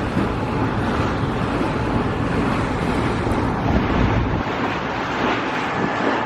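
Wind buffeting the microphone over water rushing past the hull of a sailboat under way: a steady rough rush with a heavy low rumble.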